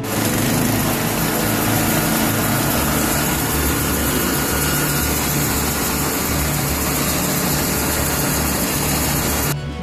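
Engine of a portable hydraulic bandsaw sawmill running steadily while the log is positioned on the bunks.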